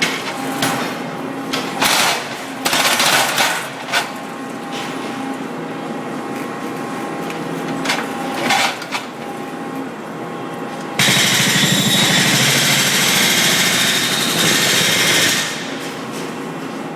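Brokk demolition robot running, its hydraulic breaker hammering into rockwork: a steady machine hum with a few short hammering bursts, then one long, loud burst of rapid hammering from a little past the middle until near the end.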